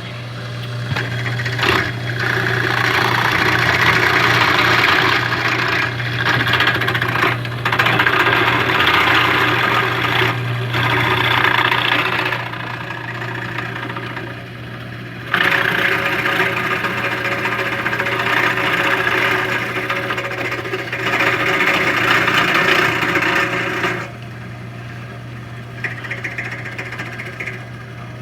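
Old Ryobi drill press running as a makeshift mill, its motor humming steadily while a two-flute end mill cuts with a rattling chatter. The cutting noise comes in two long passes and eases off to plain running at about 12 seconds and again from about 24 seconds.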